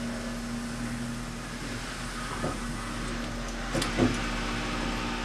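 Plastic IV fluid bag and tubing being handled as the bag is spiked and the air is cleared, with a few faint clicks and crinkles around four seconds in, over a steady room hum.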